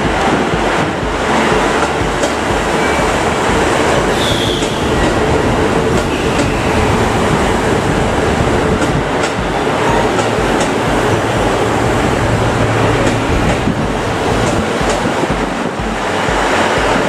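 KiHa 85 series diesel limited-express train running slowly into the platform: diesel engines throbbing under the rumble of the cars, and wheels clicking over the rail joints. A short, high brake squeal comes about four seconds in.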